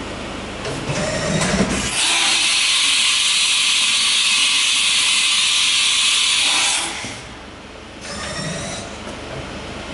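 Mikron-Haas VCE500 CNC machining center running: some mechanical movement noise, then a loud, steady hiss that starts abruptly about two seconds in and cuts off sharply about five seconds later, followed by quieter mechanical sounds.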